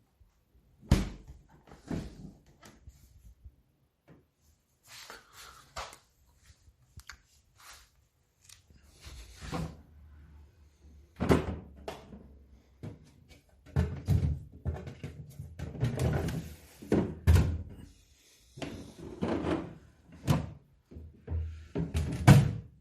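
Refrigerator doors and drawers being opened and closed: an irregular series of thuds and knocks, the loudest about a second in and near the end.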